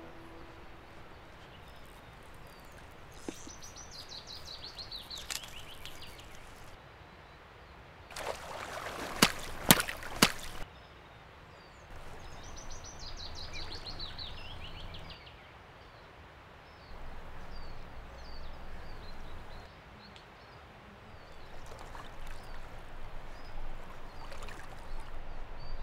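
Quiet riverside ambience of flowing water, with a small bird's song, a quick falling run of high notes, heard twice. A few sharp knocks come about nine to ten seconds in.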